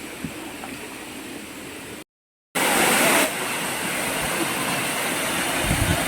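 Steady rush of a waterfall. It cuts out briefly about two seconds in and comes back louder, with a few low thumps near the end.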